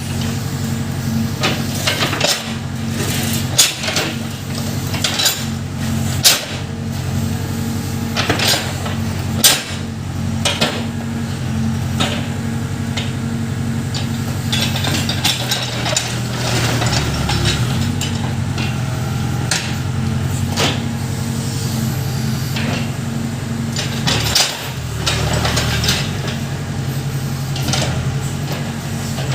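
Case Super K backhoe's engine running steadily while the machine works, with frequent sharp metallic clanks and knocks from the bucket and linkage. The engine's low note shifts twice, about halfway through and again near the end.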